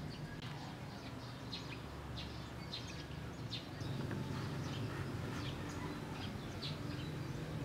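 Birds chirping, short calls scattered throughout, over a low steady hum.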